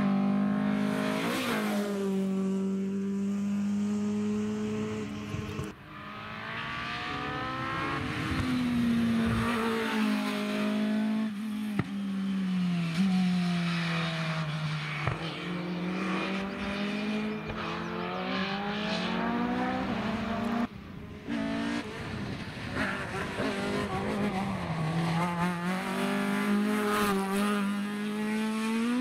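Rally car engines, among them Mk2 Ford Escorts, revving hard at full throttle as the cars pass one after another; the engine note climbs and drops again and again with the gear changes. The sound breaks briefly about six and twenty-one seconds in as one car gives way to the next.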